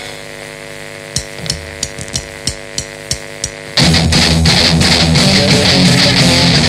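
Crossover-thrash band recording: a held, ringing guitar chord with about eight sharp percussion clicks, about three a second. Just under four seconds in, the full band crashes back in with distorted electric guitars, bass and drums.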